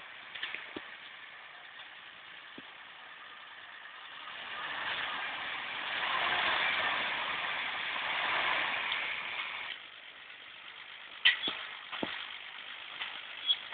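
Nissan Patrol 4x4 engine running as it drives through snow and mud, swelling louder for a few seconds in the middle and dropping off suddenly. A few sharp knocks near the end.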